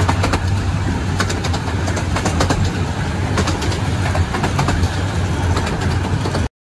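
A 15-inch-gauge miniature steam train running along the line, heard close by: a steady low rumble with scattered sharp clicks. It cuts off suddenly near the end.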